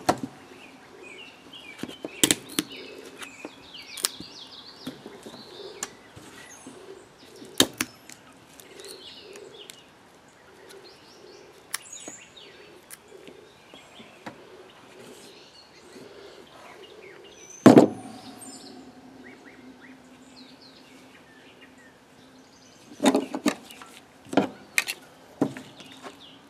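Wire cutters snipping through a skinned muskrat's feet, heard as scattered sharp clicks and clacks of tools and carcass against a metal sink top, with one loud knock about two-thirds through and a quick run of clicks near the end. Birds chirp faintly in the background.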